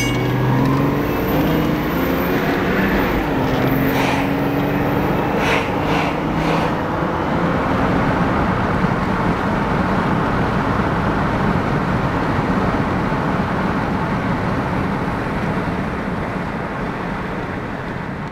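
Steady road and wind noise from a moving car, with a low engine drone in the first few seconds and a few sharp clicks about four to six seconds in.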